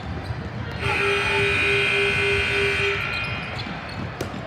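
Gym scoreboard horn sounding one steady buzzing tone for about two seconds, starting about a second in.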